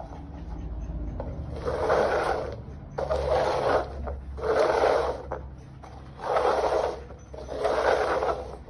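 Upturned plastic cups slid and scraped across a tile floor as they are shuffled, in five separate passes of under a second each.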